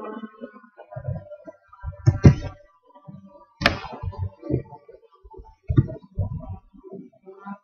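Several irregular knocks and thumps in a room, the loudest a bit over two seconds in, with a sharp clack about three and a half seconds in.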